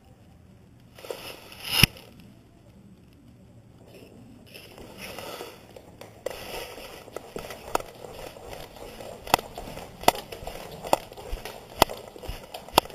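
Rustling and rubbing on a dog-mounted action camera, with a sharp knock about two seconds in, then steady rustling scattered with sharp clicks and knocks as the dog moves about on a hardwood floor.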